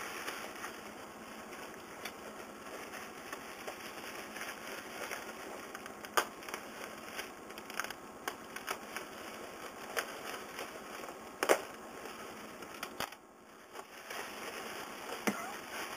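Plastic bubble wrap rustling and crinkling as it is handled and unwrapped by hand, with a few sharper snaps.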